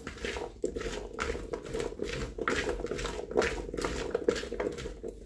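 Raw oiled potato cubes being stirred with a metal fork in a plastic bowl: irregular clicks and scrapes of the fork against the potatoes and the bowl, with the cubes clattering together.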